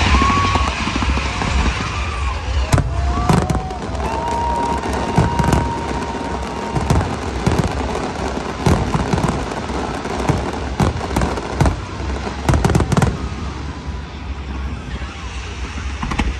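Aerial firework shells bursting in a fireworks display: repeated sharp bangs and crackles, coming in clusters, over a steady low rumble. A few drawn-out whistling tones sound during the first several seconds.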